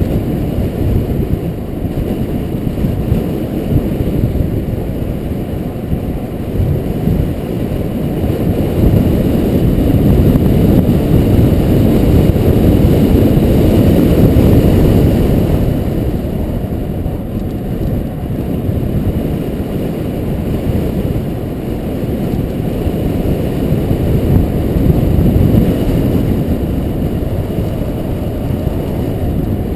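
Wind buffeting the microphone of a camera on a bicycle speeding downhill: a steady low rumbling rush that swells for several seconds about a third of the way in.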